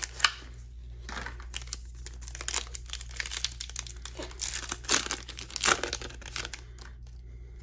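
A trading card pack's wrapper crinkling and tearing as it is opened by hand: a run of irregular crackles that thins out near the end, over a steady low hum.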